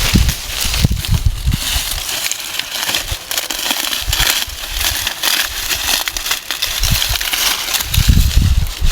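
Dry maize stalks and husks crackling and rustling as cobs are picked by hand, with a few low thumps near the start and again near the end.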